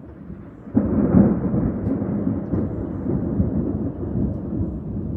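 Thunder: a low rumble swells, then a loud clap breaks about a second in and rolls on as a long, deep rumble.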